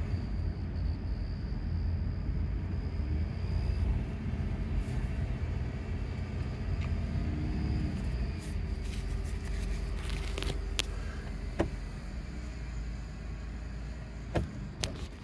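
Low engine and drivetrain rumble inside the cabin of a 2012 Dodge Grand Caravan with a 3.6 L V6, rolling slowly in Drive and slowing almost to a stop. Several sharp clicks come in the second half.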